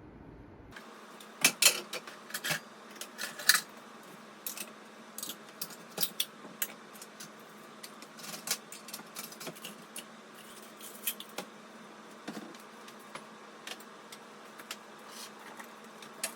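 Dishes and cutlery clinking and clattering as they are handled, in irregular light knocks with a few sharper clinks in the first few seconds.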